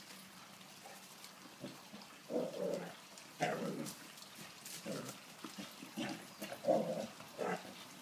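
A Vizsla dog making a run of short, low vocal sounds, about six of them.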